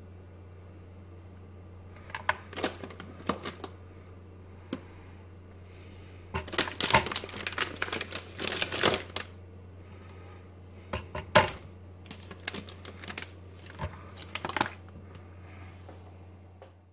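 Chocolate bar wrapper crinkling and chocolate pieces being handled and set down on a plastic kitchen scale: a dense run of crisp crinkling in the middle, with scattered sharp clicks and taps before and after. A steady low hum sits underneath.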